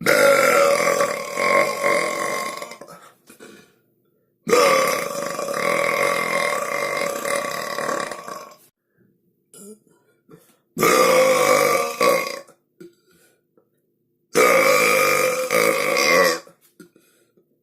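A series of four long, drawn-out human burps, each lasting about two to four seconds, with short silences between them.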